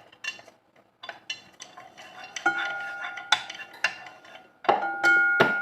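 A metal utensil stirring dried prawns frying in a pan: quick scrapes and knocks against the pan. Harder strikes about halfway through and near the end leave the metal ringing with a clear tone.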